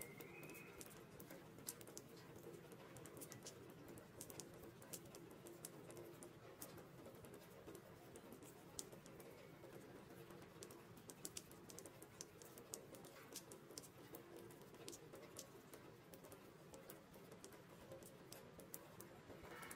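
Faint rain: irregular drips and ticks of raindrops hitting a puddle over a soft, steady hiss.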